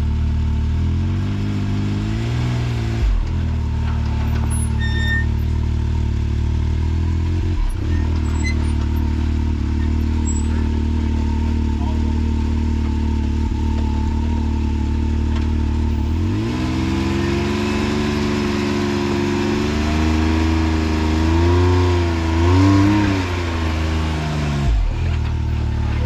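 A Can-Am Maverick X3 side-by-side's engine idles and revs in throttle blips while it crawls up a steep rock ledge under load, its rear tire losing its hold on the rock. The revs climb sharply about two-thirds of the way in and waver up and down before dropping back near the end. A couple of faint knocks come early on.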